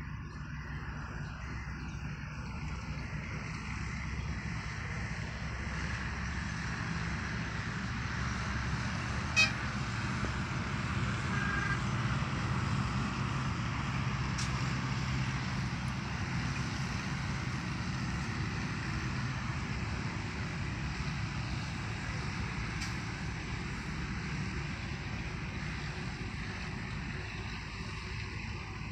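Steady distant low rumble that swells slowly toward the middle and then eases off, with a single sharp click about nine seconds in.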